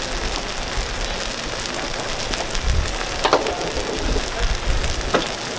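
Takoyaki batter and filling sizzling steadily on a hot griddle, with a few sharp clicks over it.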